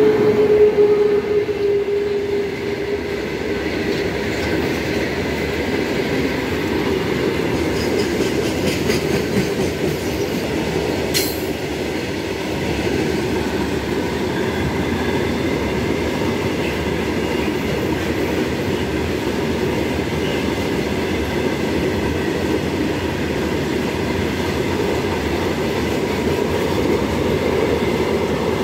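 Freight train of covered goods wagons rolling past close by behind an electric locomotive: a steady rumble and clatter of steel wheels on the rails. A steady hum fades out over the first few seconds, and there is one sharp metallic click about eleven seconds in.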